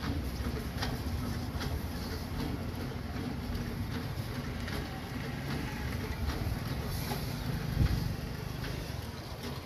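Faint scrapes of a hoof knife paring a donkey's hoof, a few short scratches about a second apart, over a steady low rumble, with a dull thump about eight seconds in.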